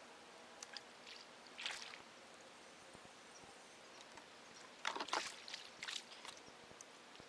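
A few short water splashes and light knocks around a fishing kayak over a faint steady hiss: a small splash about two seconds in, then a louder cluster of splashes about five and six seconds in.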